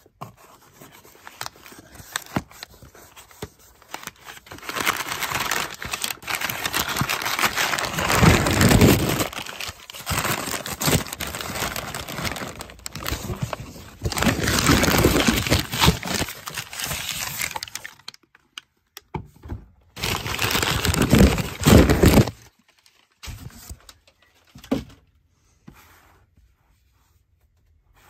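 Crumpled brown kraft packing paper crinkling and rustling as it is pulled out of a cardboard shipping box, in long loud stretches. It ends in a few light handling taps and clicks.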